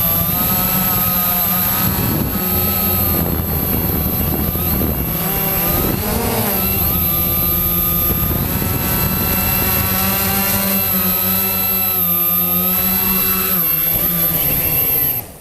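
Quanum Nova quadcopter's motors and propellers whining in flight, the pitch drifting up and down with throttle. The sound cuts off suddenly right at the end.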